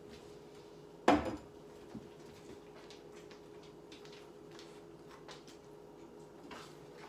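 Kitchenware clattering: one loud knock with a short ring about a second in and a smaller one just after, then faint scraping and light knocks of a utensil stirring food in a stainless steel frying pan, over a faint steady hum.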